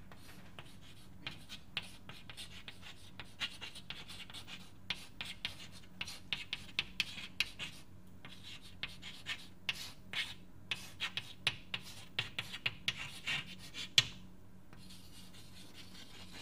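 Handwriting: a long run of short, irregular scratching strokes and taps of a pen or chalk on a writing surface, with one sharper tap about fourteen seconds in, over a faint steady low hum.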